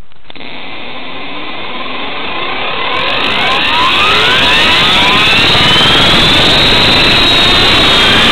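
Align T-Rex 450SE V2 electric RC helicopter heard from its own on-board camera as the rotor spools up on the ground. Several whining tones glide in pitch as the sound grows louder over the first five seconds or so, then holds steady.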